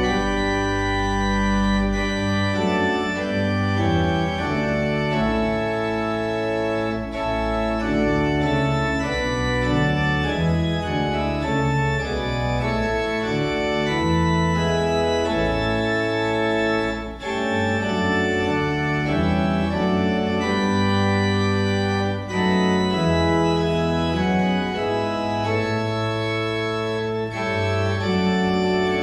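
Church organ playing a hymn: sustained full chords over a low bass line, with short breaks between phrases.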